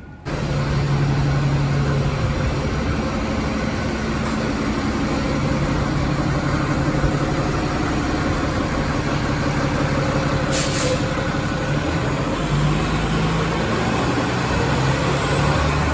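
Diesel engine of a TTC city bus running close by with a steady low drone. A short, sharp hiss of compressed air comes about eleven seconds in. Near the end the engine's rumble grows heavier as the bus pulls away.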